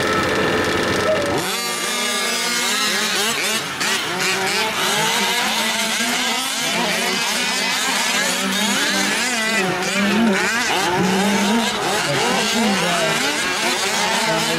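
A pack of 1/5-scale gas RC trucks racing, their small two-stroke engines revving up and down over one another. About a second and a half in, the sound jumps from a few steady engines to many engines revving together.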